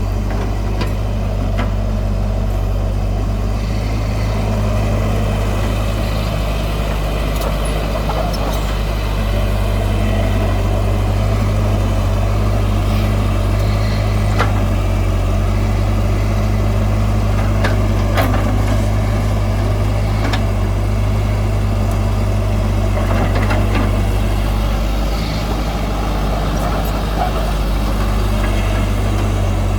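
Heavy diesel engine of earth-moving machinery running steadily, with a few short sharp clicks along the way.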